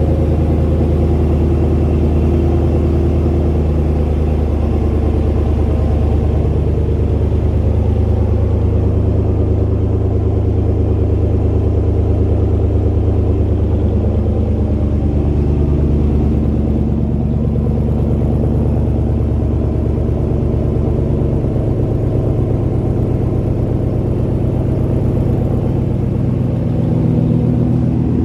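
2020 Ram 1500's 5.7-litre Hemi V8 idling steadily just after a cold start, a deep, loud exhaust note through a muffler- and resonator-deleted exhaust with 5-inch tips.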